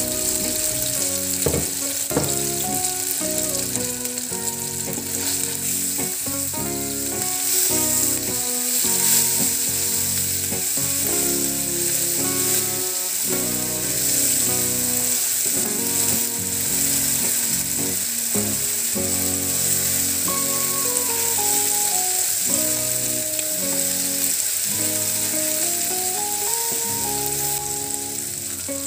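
Ground spice paste sizzling steadily as it is sautéed in hot oil in a nonstick frying pan and stirred with a silicone spatula. Background music with a slow stepping melody plays throughout.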